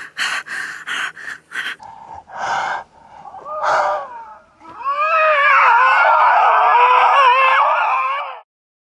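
A group of animals yipping and howling. It starts with a quick run of short sharp yips, about four a second, then two single calls, and from about five seconds a dense chorus of many wavering howls at once that cuts off suddenly near the end.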